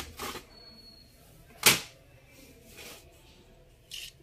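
Handling noise from a laptop being taken apart: one sharp click about a second and a half in, with a couple of faint knocks later and quiet between.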